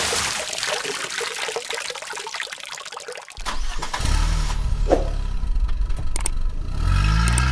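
A rush of noise that fades over about three seconds. Then a car engine starts about three and a half seconds in, idles steadily and revs up near the end.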